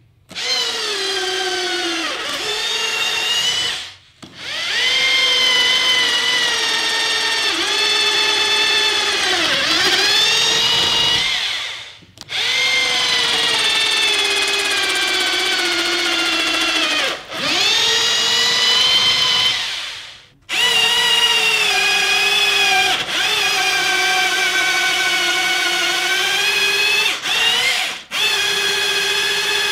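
Bosch GBH 24VRE cordless rotary hammer drill running on its rebuilt 24V lithium-ion battery, drilling into a wooden plank. The motor whines steadily, and its pitch sags when the bit bites. The trigger is released and squeezed again about 4, 12 and 20 seconds in.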